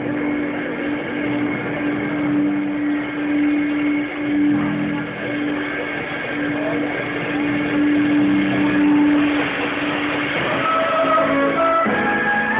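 Live band playing an instrumental passage, with congas, drum kit, electric guitar and keyboard. One long low note is held through most of it, and a higher melody comes in near the end.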